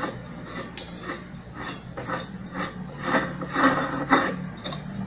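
Repeated ratcheting clicks, about two a second and loudest around three to four seconds in, as screws are driven into an electric orange juicer's plastic housing during reassembly.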